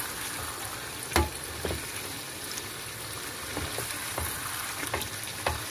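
Chicken pieces sizzling in a thick sauce in a frying pan as a wooden spoon stirs them, with a steady sizzle and several short knocks of the spoon against the pan, the loudest about a second in.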